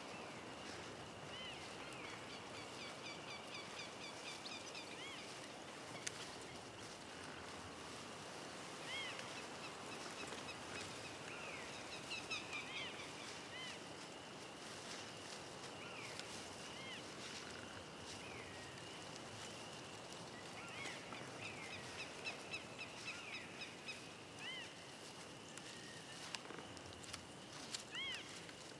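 Birds chirping and calling now and then with short, arched notes and quick runs of repeated notes, over a steady high-pitched hum and a faint hiss.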